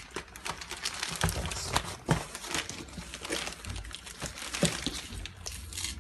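Plastic packaging crinkling and crackling in irregular bursts, with light taps, as a new laptop LCD panel is unwrapped and handled.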